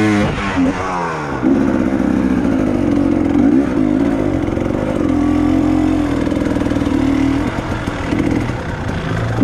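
Off-road motorcycle engine revving hard, its pitch swinging up and down at first and then held high and fairly steady under load, as on a hard enduro hill climb.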